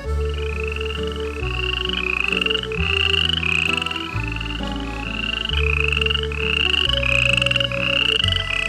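An animal's call repeated about thirteen times, a short rising chirp roughly every two-thirds of a second, over background music with a moving bass line.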